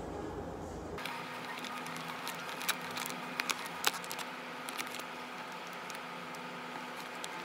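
Plastic sandwich packaging being peeled and opened by hand: a run of sharp crinkles and crackles from about two and a half to four seconds in, over a faint steady hum.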